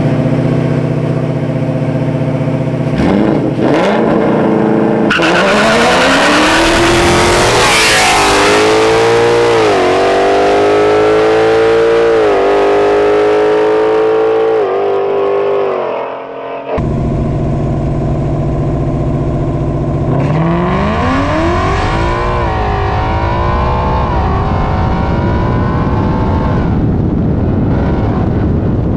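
Ford Mustangs launching from a standing start in a street drag race. The engines run up hard through the gears, their pitch climbing and dropping back at each of several upshifts. After a sudden cut, the cars are heard again accelerating through the gears.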